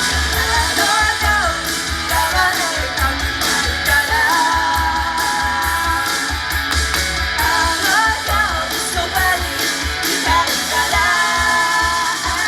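Live idol-group performance: singing over loud, fast rock music with distorted electric guitar and rapid pounding drums, heard as amplified sound in a live venue.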